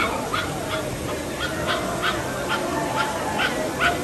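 A dog barking over and over in quick, sharp yaps, about three or four a second, over steady background noise.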